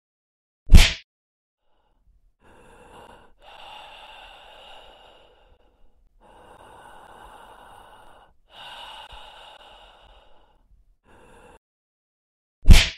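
A person breathing heavily in a series of long, noisy sighs and snorts. The breathing is framed by two loud, sharp thumps, one about a second in and one near the end.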